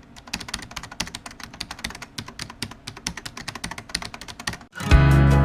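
Rapid, irregular clicks of typing on keys. Near the end they stop and music with a heavy bass beat comes in.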